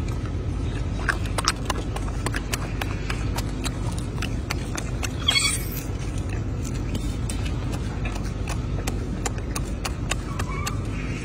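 Golden snub-nosed monkey eating fruit close to the microphone: scattered sharp chewing clicks over a steady low rumble, with a brief rustle about five seconds in.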